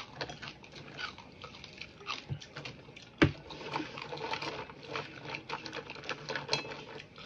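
Crispy fried chicken feet crackling and clicking as they are chewed and picked through by hand on a plate, in a string of short irregular crunches, with one sharp click about three seconds in.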